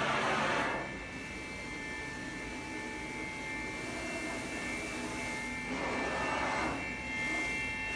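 Steady whir of shop machinery with several faint, high, steady whines, and a louder hissing rush lasting under a second at the start and again about six seconds in.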